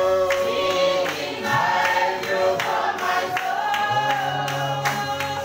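Church congregation singing a gospel chorus together in held notes, with hand claps.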